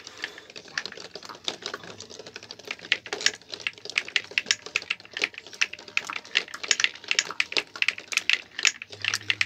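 Glass marbles rolling down a homemade wooden marble run, knocking against the wooden deflector slats and each other in a quick, irregular stream of clicks.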